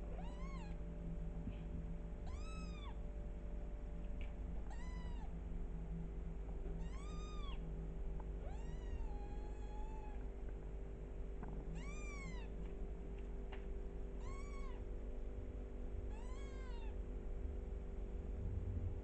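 Small kitten mewing repeatedly: about eight short, high-pitched mews a couple of seconds apart, each rising then falling in pitch, one of them drawn out longer about halfway through. A steady low hum runs underneath.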